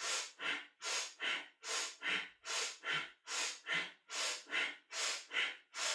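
A woman's powerful rhythmic breathing, quick strong inhales and exhales alternating about two and a half times a second, each breath timed to one stroke of a seesaw elbow movement in a kundalini yoga kriya.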